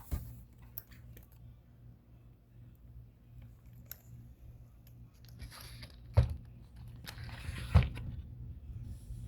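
Handling noise from a plastic RC truck being turned over in the hands: scattered clicks, rustling and scraping, with two sharper knocks about six and eight seconds in, over a steady low hum.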